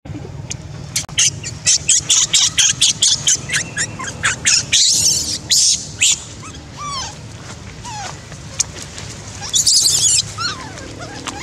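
Newborn baby macaque screaming in distress: a rapid run of shrill cries, about three a second, then after a lull a second burst of screams near the end as an adult monkey grabs it.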